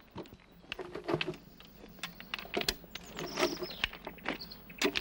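Hand tools at work on a metre-gauge railway track: steel bars and rail tongs knocking and scraping against the rails and the ballast stones. The knocks come as a string of irregular, sharp clinks and thuds.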